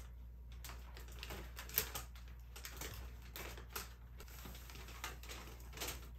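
Faint, irregular crinkling and rustling of a paper bag as a cat moves about with its head inside it, with a sharper crackle about two seconds in.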